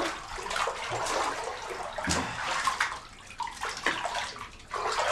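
Bathwater sloshing and splashing in a tub as someone washes, in uneven surges.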